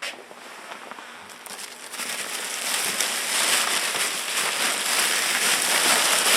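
Dense crackling, crinkling rustle made of many fine ticks, faint at first and growing louder about two seconds in.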